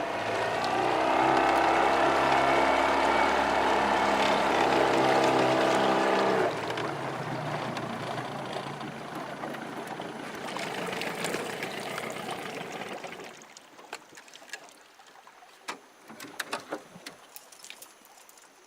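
Boat's outboard motor running steadily, then cutting off about six seconds in, leaving a rushing water noise that fades out by about thirteen seconds. A few light clicks follow.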